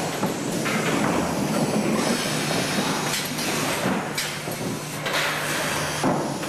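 Automated 180-degree panel turning unit running on a roller conveyor line: a steady motor and roller hum with several short hisses and knocks from its pneumatic cylinders.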